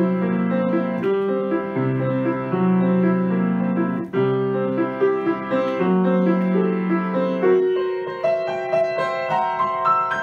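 Grand piano played solo: repeated chords in the low middle register, then from about eight seconds in a line of single notes climbing step by step into the treble.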